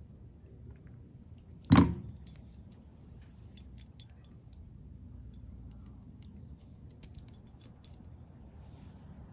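Fishing pliers' line cutter snipping the tag end of fishing line, one sharp click a little under two seconds in. Faint light metallic ticking and jangling follows as the pliers and the treble-hooked lure are handled.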